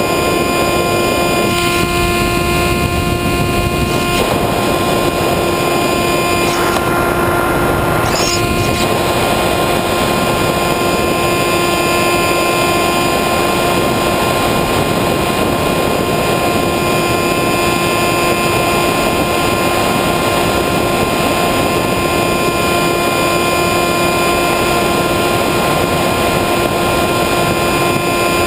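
Electric motor and propeller of an Easystar II foam model plane running at constant throttle, a steady whine with wind rushing past the onboard camera.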